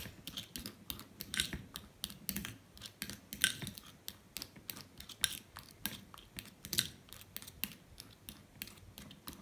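Small metal spoon clicking and scraping against a ceramic bowl in quick, irregular strokes, as egg yolk and soft white cheese are mashed and stirred into a creamy paste.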